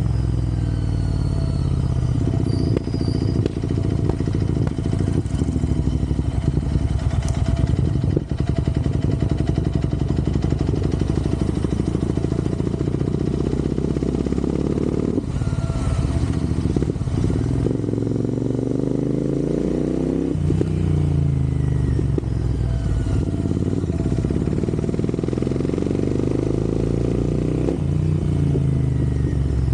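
Royal Enfield Interceptor 650's parallel-twin engine running under way, with road and wind noise. Its pitch rises and falls back several times as the rider accelerates and shifts gears.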